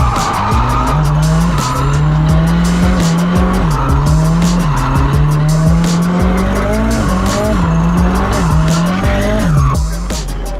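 Nissan Laurel C33 engine revving hard, its pitch climbing and dropping over and over as the throttle is worked, with the tyres squealing and skidding throughout.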